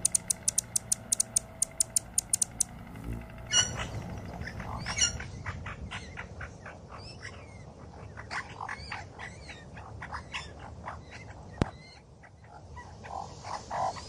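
A male Anna's hummingbird gives a rapid, even series of high chip notes, about five a second, that stops about three seconds in. After that comes a Eurasian magpie's run of irregular short, harsh notes and clicks.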